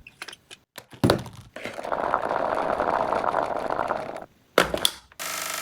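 Mechanical handling sounds of a toy gel blaster: a few sharp clicks and a thunk, a few seconds of fast rattling, two more clicks, then a short steady buzz near the end.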